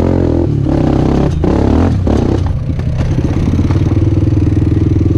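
Honda 250X's single-cylinder four-stroke engine under throttle off-road, easing off and picking up again several times in the first two and a half seconds, then running steadily. Clattering from the machine over rough ground.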